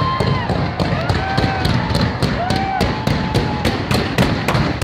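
Wedding mine fireworks firing in a rapid, even string of sharp cracks, about four a second. Tones that rise and fall run through it, over a dense rumbling din.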